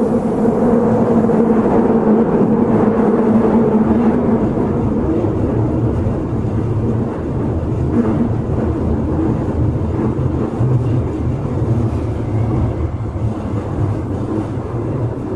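Osaka Metro 23 series subway train heard from inside the car while running: a steady hum from its Hitachi IGBT inverter and traction motors over the rumble of wheels on rail. The hum fades after about five seconds, leaving the rolling rumble, which quietens slightly near the end.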